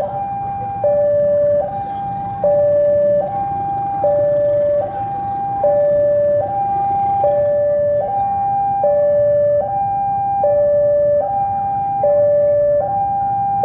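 Railway level-crossing warning alarm sounding a steady two-tone signal, a higher and a lower tone alternating, each held just under a second. Beneath it runs the low rumble of a CC 203 diesel-electric locomotive accelerating hard at full throttle.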